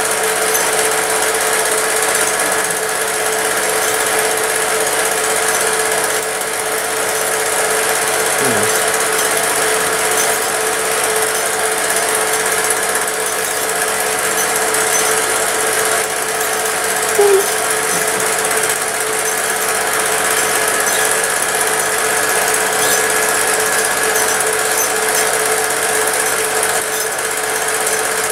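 Film projector running steadily, a continuous mechanical whir and rattle from its film-advance mechanism, with one short louder sound about two-thirds of the way through.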